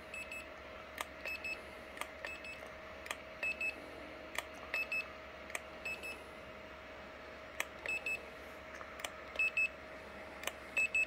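Handheld infrared thermometer beeping again and again as it takes readings: short high beeps, often in quick pairs, with sharp clicks between them, over a steady faint hum.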